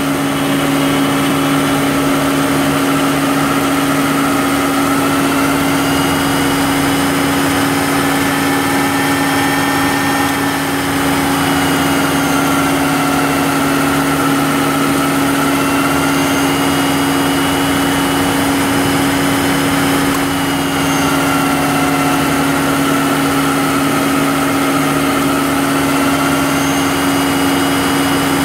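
Volvo V70 engine idling, heard close at the air-conditioning compressor's pulley, magnetic clutch and drive belt: a steady low hum with higher whining tones that slowly waver in pitch. The sound dips briefly twice, about ten and twenty seconds in.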